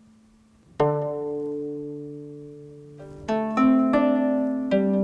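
Music of plucked strings: one chord plucked about a second in and left to ring, then a run of new plucked notes from about three seconds in.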